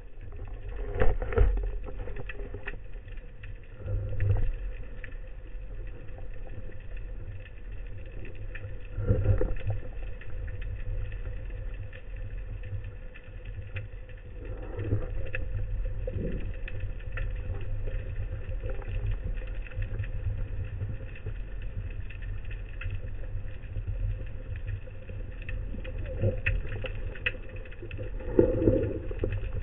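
Underwater noise picked up by a camera mounted on a speargun: a low steady rumble of water, broken every few seconds by brief rustling knocks of the gun and diver moving.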